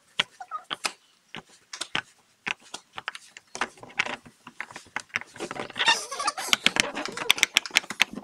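Silicone pop-it fidget toy being pressed with the fingers: a string of short pops, spaced out at first, then coming fast and close together in the last few seconds.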